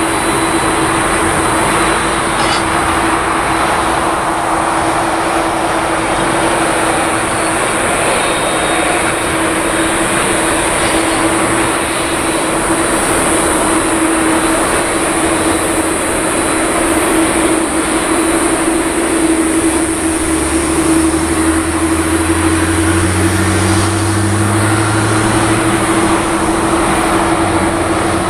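Boeing 787 airliners' jet engines running at taxi power: a steady rushing roar with a constant hum and a high hiss. Deeper engine tones join about two-thirds of the way through as the second jet comes near.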